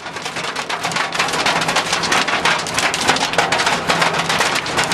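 Hail and heavy rain drumming on a car's roof and windscreen, heard from inside the car: a dense, continuous rattle of countless small hits that builds up over the first second.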